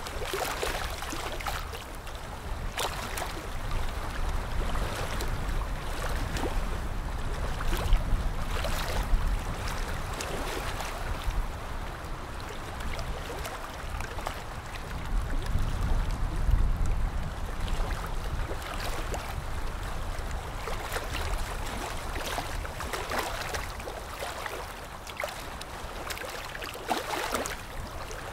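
Ultrasonic dental scaler with its water spray, together with a suction tip, hissing and gurgling steadily while scaling tartar off lower front teeth, with occasional short sharp ticks.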